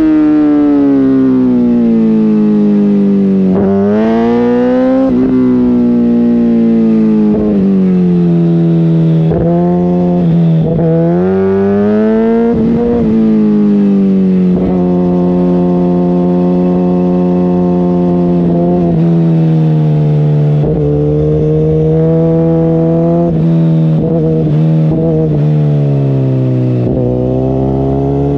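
Suzuki GSX-R1000R inline-four sport-bike engine under way, its pitch rising and falling through the gears with several quick swoops of revs. About halfway through it holds a steady pitch for several seconds, then slowly eases off.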